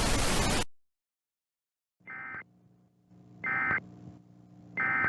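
Loud static hiss cuts off suddenly under a second in. After a short pause come three short bursts of warbling digital data tones, about a second and a half apart, over a faint low hum: the Emergency Alert System end-of-message (EOM) signal that closes an alert.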